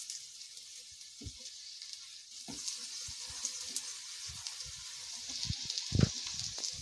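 Oiled stuffed cauliflower paratha sizzling on a flat tawa, with soft low knocks as it is pressed and turned by hand on the pan, the loudest about six seconds in.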